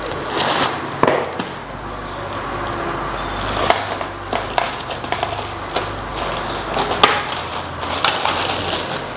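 Plastic packaging crinkling and rustling as a ceiling-fan blade in a plastic bag is handled and pulled out of it, with irregular crackles and a few sharper snaps.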